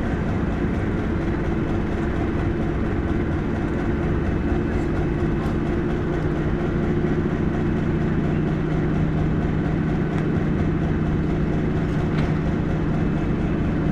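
Diesel engine of a PKP SM42 shunting locomotive running steadily just after a cold start, having been started from an external generator because its battery was too weak. It holds a constant hum, with a deeper tone growing stronger about five seconds in.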